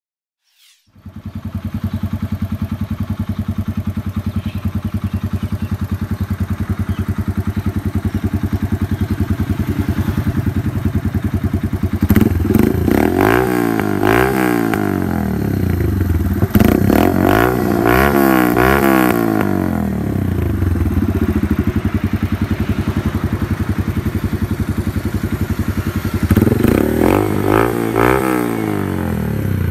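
Yamaha YBR 125G's single-cylinder four-stroke engine running through an SC Project aftermarket exhaust, idling steadily, then revved three times, each rev rising and falling in pitch, with a sharp pop during the second rev.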